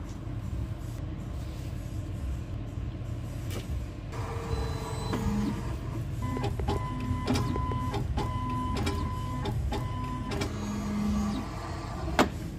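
Ripples latte-art printer at work printing onto the milk foam: from about four seconds in, its mechanism runs with a quick series of short clicks and brief motor tones, ending with a short hum and a sharp click near the end, over a steady low rumble.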